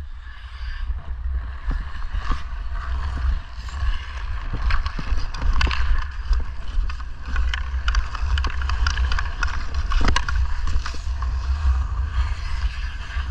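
Hockey skate blades scraping and carving on outdoor rink ice, under a steady low rumble of wind on a body-worn camera's microphone. Sharp clicks and taps come throughout as the stick handles the puck.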